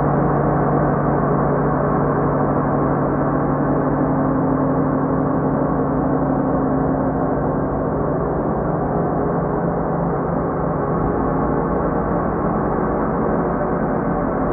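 Ambient background music: a steady drone of many held, ringing tones with no beat or rhythm.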